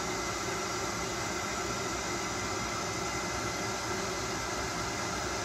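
Steady background noise: an even hiss with a faint low hum and a few thin steady tones, unchanging and with no distinct events.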